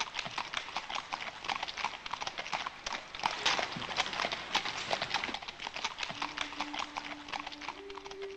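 Hoofbeats of several horses on a hard gravel track, a dense, irregular clatter of sharp clip-clops. Low sustained music notes come in near the end.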